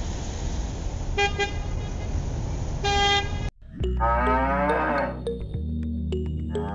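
Tractor engine sound effect running with two short horn toots, cutting off suddenly about three and a half seconds in. It is followed by one long cow moo.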